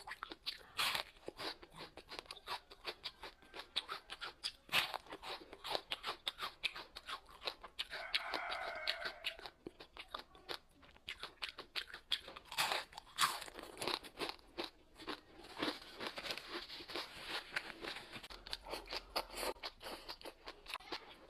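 Close-up crunchy chewing: many crisp, irregular crunches and bites in quick succession as food is chewed.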